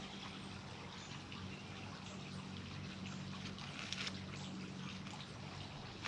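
Soft rustling and handling noises from small potted succulents and their gift-box packaging, with a louder rustle about four seconds in, over a steady low hum and a continuous trickling hiss.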